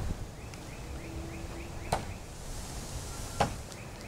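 Two sharp knocks about a second and a half apart: a steel throwing knife, thrown sidearm, striking the wooden log-round target. A faint high chirp repeats in the background.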